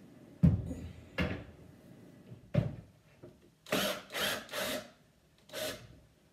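Three sharp wooden knocks as a cabinet door is set down and handled, then a cordless screw gun running in four short bursts, backing the hinge screws out of a wooden kitchen cabinet door.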